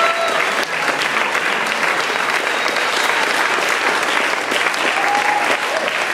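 Crowd of dancers clapping steadily after the tune has ended, with a short cheer from one voice about five seconds in.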